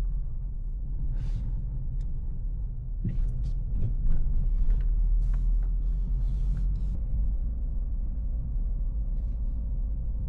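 Car driving at low speed, heard from inside the cabin: a steady low road and engine rumble, with a few light knocks and rattles in the middle.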